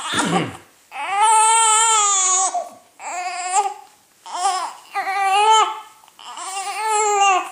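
A newborn baby girl making high, squeaky fussing cries: five of them, the first held for about a second and a half and the rest shorter. She is a tired baby fighting sleep.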